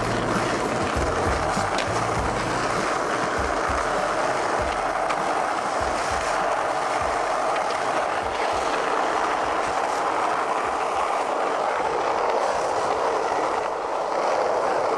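Skateboard wheels rolling over rough asphalt street, a steady rolling noise, with a few faint clicks. Music bass underneath fades out over the first few seconds.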